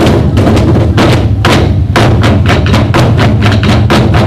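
An ensemble of Korean buk drums beaten together in a fast, driving rhythm, several sharp strikes a second over a continuous low boom; very loud.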